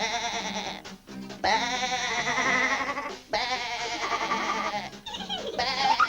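Three long, quavering bleats of a cartoon sheep or goat over light background music.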